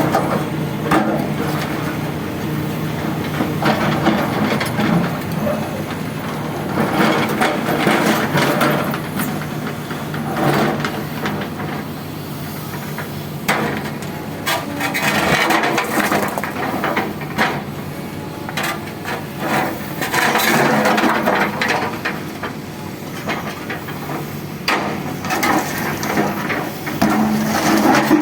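Sumitomo excavator running steadily while its bucket knocks, scrapes and cracks against rock in irregular strikes.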